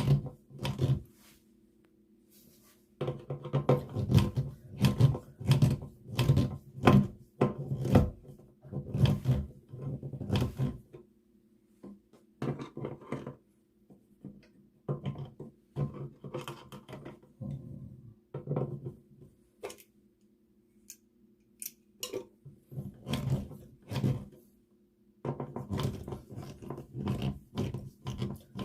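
Hands working a wall toggle switch and its wiring into the electrical box: irregular clicks, taps and knocks in bursts, with short pauses between.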